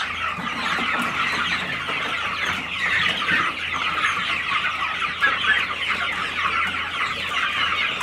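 A crowded flock of young white broiler chickens calling all at once: a dense, continuous chorus of many overlapping short cheeps and clucks.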